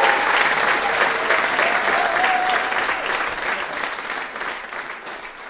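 Audience applauding after a song, the applause fading away over the last couple of seconds.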